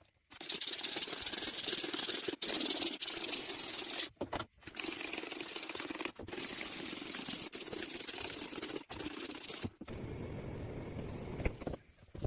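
Stovetop being scrubbed: a steady scratchy hiss in long strokes, broken by short pauses, turning quieter and duller about ten seconds in.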